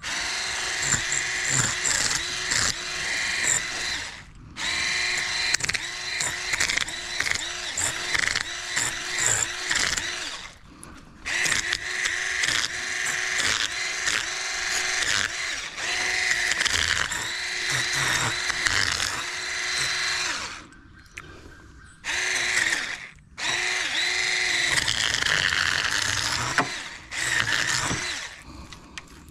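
Handheld electric fish scaler running, a steady motor hum under the scratchy rasp of its spinning head stripping scales off a large sheepshead. It stops briefly and starts again several times.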